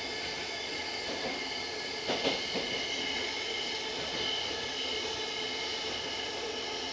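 Cabin running noise of a Tokyo Metro 05 series subway car under way: a steady rumble with faint steady whines. About two seconds in there is a short cluster of knocks.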